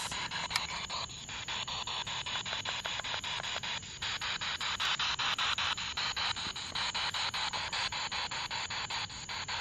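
Spirit box, a radio scanning rapidly through stations, played through a small external speaker. It gives a steady hiss of radio static, chopped into short pieces several times a second as it sweeps.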